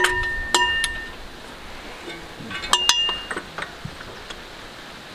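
Metal hand tools clinking: a wrench and other steel tools knocking together. There are a handful of sharp clinks that ring on briefly, grouped at the start and again about three seconds in.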